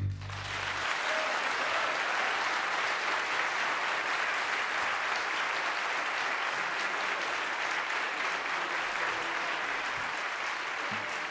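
Audience applauding steadily at the end of a song, the song's last low note dying away under the clapping within the first second.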